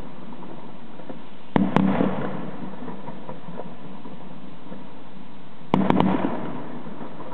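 Fireworks exploding overhead: two volleys of sharp bangs, one about a second and a half in and another about two seconds before the end, each followed by a fading echo.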